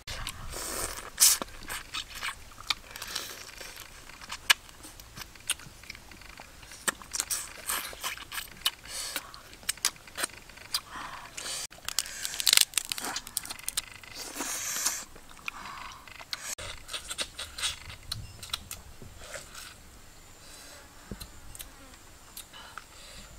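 Close-up eating sounds: irregular crunching, biting and chewing, busiest over the first two-thirds and sparser near the end.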